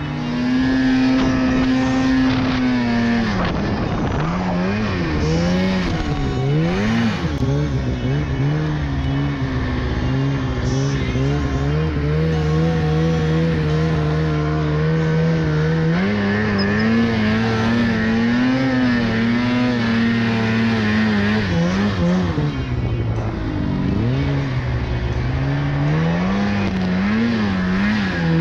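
Turbocharged Polaris 850 two-stroke snowmobile engine running hard in deep snow. The throttle is held steady for long stretches, and the pitch drops and climbs again several times as the rider lets off and gets back on the gas.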